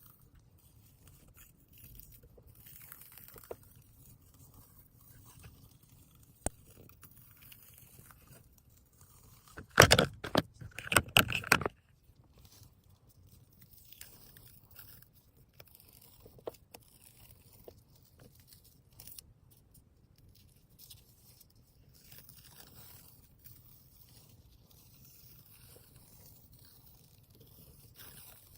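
Hands wrapping gauze onto a shift knob: faint, scattered rustling and handling noises, with one loud burst of rustling and crackling lasting about two seconds, around ten seconds in.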